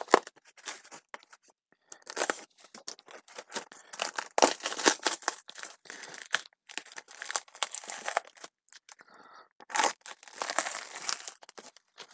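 Clear packing tape being slit with a snap-off utility knife and pulled and torn off a small cardboard parcel, in an irregular run of tearing and crinkling with short pauses.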